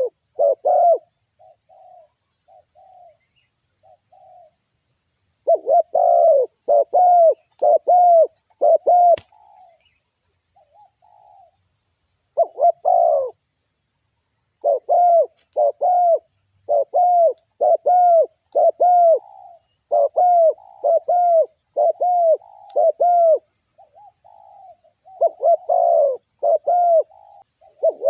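Spotted doves cooing: phrases of short, arched, low coos repeated one after another, with pauses of a second or two between phrases.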